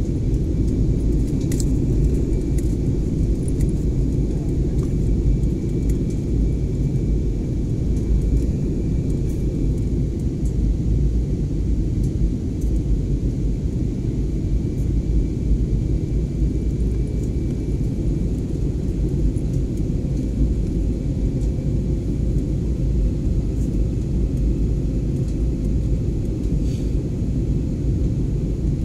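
Steady low rumble of an Airbus A320-family airliner's cabin in flight, engine and airflow noise heard from a window seat, with a few faint ticks.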